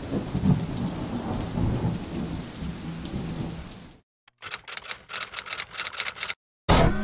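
Thunderstorm sound effect, rain hiss with low rolling thunder, fading out about four seconds in. After a brief silence, typewriter keys clack for about two seconds.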